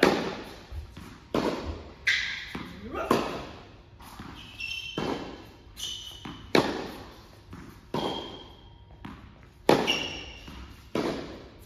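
Tennis rally: the ball struck by the racket and bouncing on the court, sharp pops about every second or so, each echoing in a large hall. Short high shoe squeaks on the court come between some of the shots.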